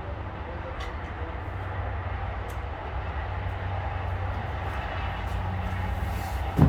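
Chainsaw mounted in a home-built chainsaw mill running steadily as it saws lengthwise through a walnut log.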